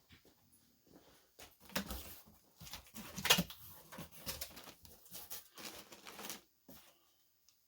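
Shipping box being opened and its packaging handled: irregular rustling, scraping and light knocks of cardboard and paper that stop shortly before the end.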